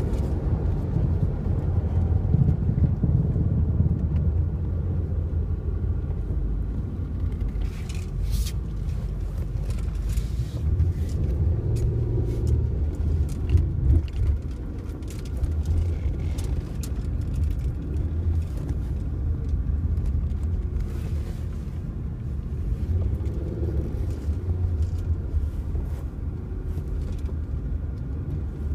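Steady low rumble of a Chrysler 300 being driven, road and engine noise heard from inside the cabin.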